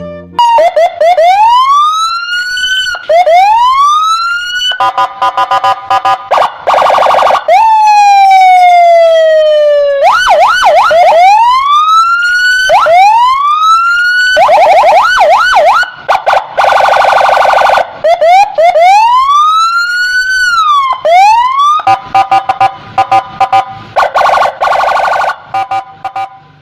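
Electronic police siren cycling through its patterns: rising-and-falling wails, quick yelps, a fast warbling tone and one long falling sweep, very loud.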